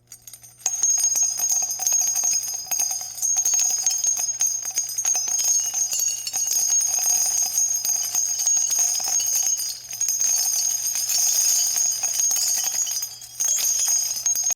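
Small bells jingling continuously: a dense rattle of tiny strikes with a steady high ringing, dipping briefly near the end.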